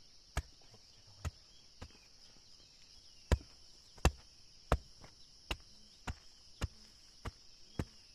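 A hand tool striking wood again and again, about eleven blows at a slightly uneven pace, the heaviest a few seconds in, as in timber-working for a wooden frame. A steady high insect buzz runs behind.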